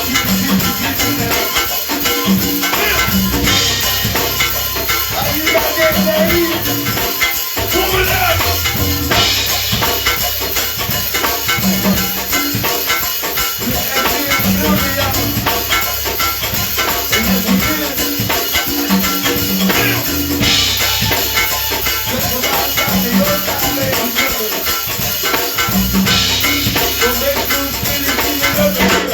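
Live band music with percussion, a rattling shaker-like part over a repeating bass line.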